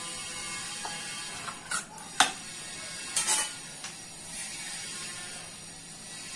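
Steady background hiss with a few short clicks and knocks, the sharpest about two seconds in and a quick pair just after three seconds.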